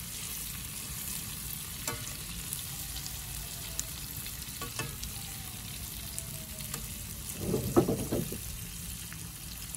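Flour-coated giant freshwater prawns frying in hot oil in a pan, a steady sizzle without popping or spattering, which the cook puts down to the salt added to the oil. Metal tongs click against the pan a few times as the prawns are turned, with a louder burst of sound about eight seconds in.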